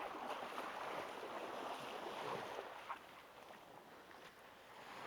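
Small waves washing on the shore, a rushing hiss that eases about three seconds in.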